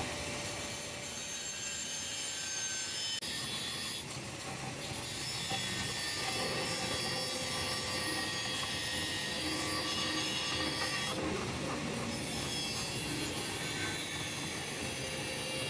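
A hand-held block scraping over the exposed metal header plate of a radiator core, a steady rubbing sound with a few short breaks.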